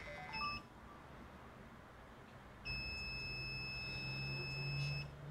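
Digital multimeter's continuity beeper giving one steady high tone for about two seconds as the probes find near-zero resistance, a closed path between the test points. A few short chirps sound in the first half second.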